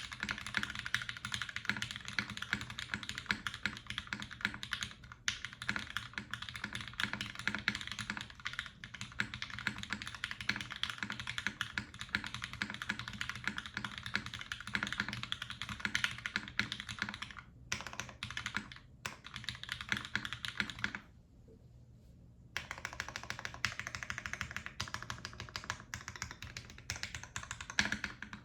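Mechanical keyboard with Krytox-lubed Cherry MX Black Ultraglide linear switches, an aluminium plate and GMK keycaps being typed on quickly: a dense run of key clacks, with a short pause about three quarters of the way through.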